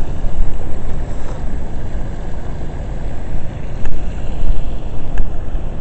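Wind buffeting an action camera's microphone: a loud low rumble that rises and falls unevenly.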